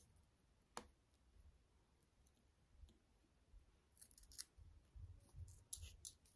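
Faint clicks and light rattles of glass seed beads and beading wire being handled, with a single click about a second in and a few quick clusters of clicks later, the loudest near the end as a pair of scissors is worked.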